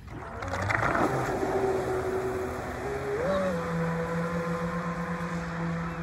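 Large RC racing catamaran's electric motor whining as the boat launches with a splash and speeds away across the water over a hiss of spray; the whine steps up in pitch about three seconds in, then holds steady.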